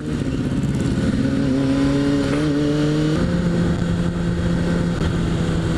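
Kawasaki Ninja ZX6R's inline-four engine running under way, its note rising slightly and then changing pitch abruptly about three seconds in, over steady wind noise on the helmet microphone.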